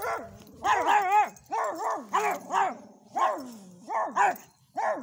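Two small dogs barking excitedly in quick runs of short, high, yappy barks, about a dozen in all with a brief pause near the end. This is alert barking at a passerby.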